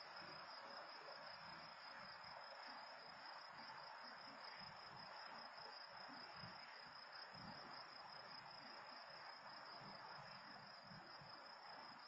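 Faint night ambience: a steady, unbroken chorus of crickets.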